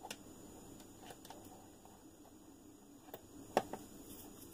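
A few faint clicks and taps of small hard plastic and metal parts as a shaft is fitted into the rear suspension of a 1/10 RC buggy. One sharper click comes about three and a half seconds in.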